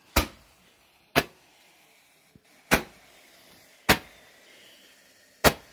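Handheld Roman candle firing, five sharp pops spaced about one to one and a half seconds apart.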